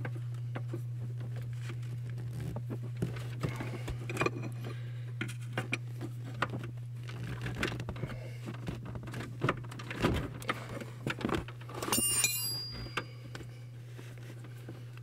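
A steel wrench clinking and knocking against the intermediate steering shaft as it is pried free of the steering column, a run of small irregular clicks and knocks, with one bright metallic ring about twelve seconds in. A steady low hum underneath.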